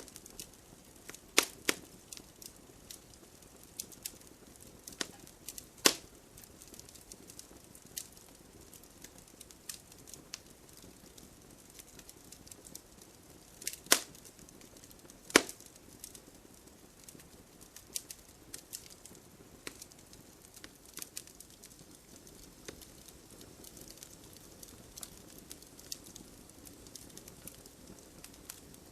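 Wood campfire crackling, with irregular small snaps and a few louder pops over a faint hiss of the flames.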